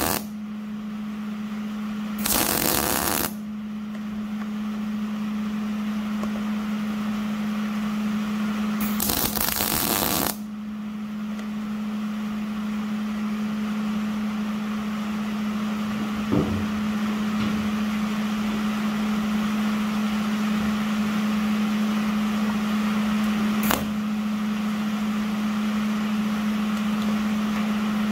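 MIG welder arc crackling in short welds of about a second each: one right at the start, one about two seconds in, and one about nine seconds in. Between the welds a steady low hum with a hiss over it, and two small clicks later on.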